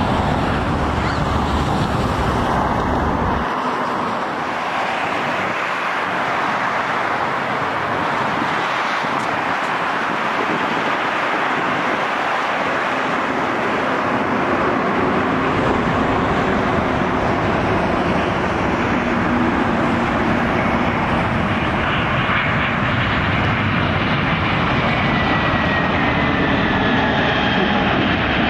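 Jet airliner engines at an airport runway: a Boeing 787 at takeoff power with a deep rumble for the first few seconds, cutting off abruptly, then the steadier roar of an Airbus A320-family jet arriving and rolling on the runway, with a thin whine falling in pitch near the end.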